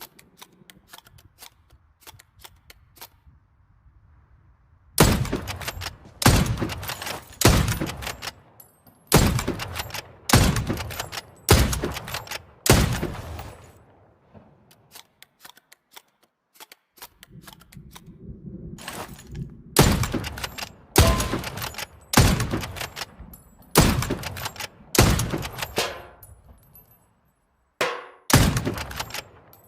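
Hunting rifle shots: after a few faint clicks come two strings of seven or eight sharp, loud shots. The shots are about a second apart, each with a trailing echo, and there is a pause of about four seconds between the strings.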